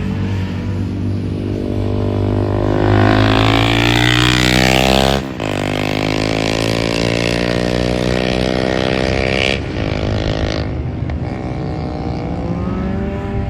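Honda CB 300 motorcycle engine pulling under load, its pitch climbing for a few seconds. About five seconds in it cuts out briefly, as in a gear change, then it carries on and climbs again.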